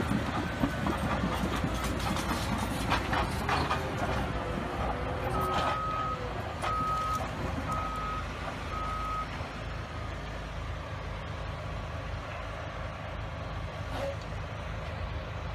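Heavy crawler bulldozer's diesel engine running with clanks and knocks from the machine, while a reversing alarm beeps four times, about a second apart, in the middle. The engine is quieter in the second half.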